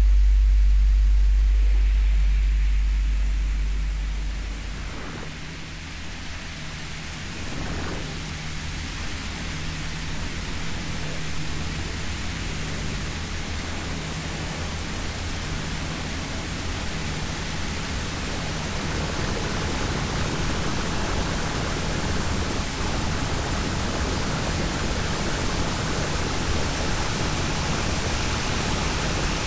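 Steady rushing noise, like a hiss, that slowly grows louder, with a faint low tone pulsing about once a second beneath it. A loud deep hum fades out over the first few seconds.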